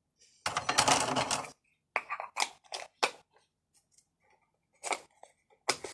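A teaspoon and small containers being handled while measuring out cinnamon powder: a second-long scraping rustle about half a second in, then a run of short sharp clicks and knocks.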